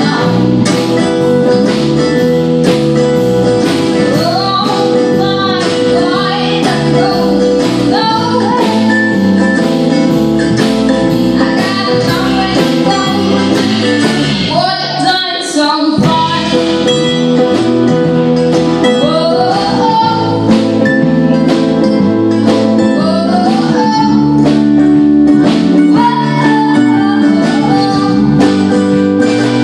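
Live band playing a song: a woman sings lead over strummed acoustic guitar, mandolin, electric bass and a drum kit keeping a steady beat.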